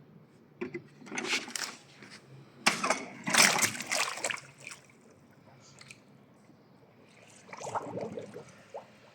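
Pool water splashing and sloshing around an Aiper Seagull 800 cordless robotic pool cleaner, in irregular bursts. The loudest burst comes about three to four seconds in, and a weaker one comes near the end.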